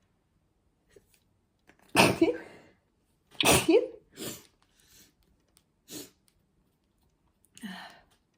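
Two loud human sneezes, about two seconds in and a second and a half apart, set off by sniffing red pepper spice, followed by a few short, softer breathy sounds.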